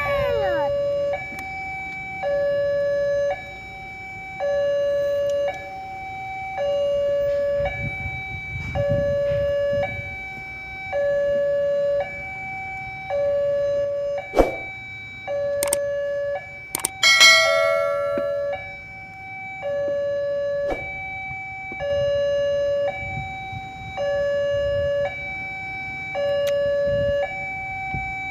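Railroad level-crossing warning alarm sounding a steady two-tone electronic signal, a lower and a higher tone alternating about once a second each, which means a train is approaching and the barrier is down. Engines of waiting vehicles idle underneath. A few sharp clicks and a brief falling tone come about 15 to 18 seconds in.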